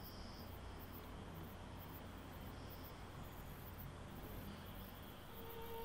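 Quiet room tone, a faint steady hiss with no distinct events. Near the end a soft held violin note enters as the film's score begins.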